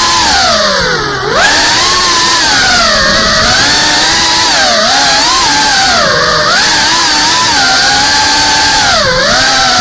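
FPV quadcopter's brushless motors and propellers whining, heard from the drone's onboard camera, the pitch falling and rising with the throttle: a deep drop about a second in followed by a sharp rise, then several smaller swoops. A steady hiss of propeller wash runs underneath.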